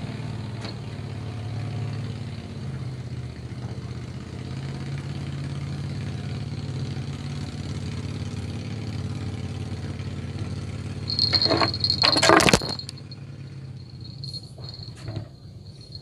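An engine running steadily with a low hum. About eleven seconds in there is a loud, brief burst of noise. After it the engine is fainter and insects keep up a thin, steady high buzz.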